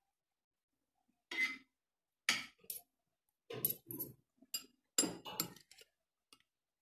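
Metal fork and spoon clinking and scraping against a ceramic plate and bowl while eating: about ten sharp, irregular clinks, some with a brief ring.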